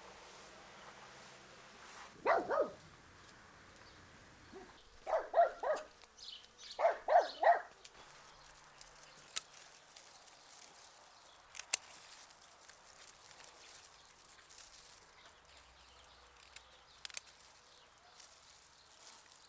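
A dog barking in three short bouts of two or three barks in the first half. A few sharp clicks follow later.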